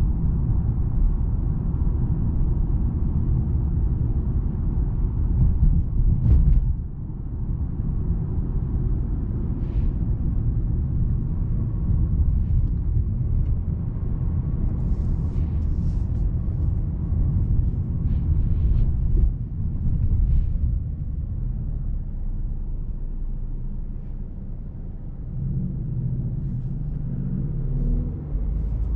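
Mercedes E350 driving on city streets: a steady low rumble of engine and road noise that rises and falls a little with speed.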